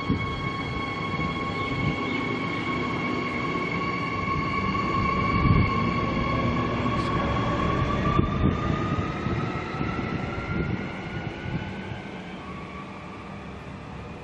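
Queensland Rail suburban electric train pulling away from the platform: its traction motors whine in steady tones over the rumble of the wheels, the whine rising in pitch from about halfway as the train picks up speed, then fading as it draws away.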